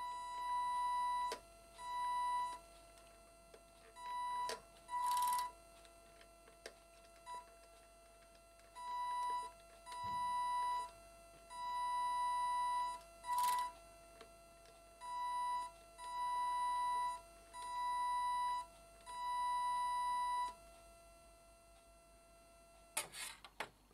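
Model boat's electric drive motor and its speed controller, driven in short stick-controlled pulses: a high whine comes and goes about a dozen times, each lasting about half a second to two seconds, with two brief louder rushing bursts. A few clicks come near the end.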